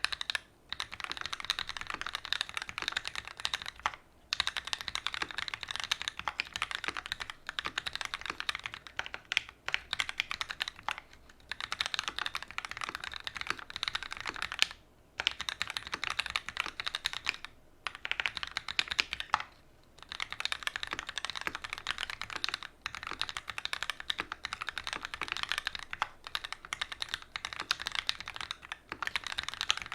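Continuous fast typing on a custom mechanical keyboard with Gateron Ink Black linear switches in an aluminum plate and GMK doubleshot ABS keycaps: dense keystroke clacks, broken by a few brief pauses.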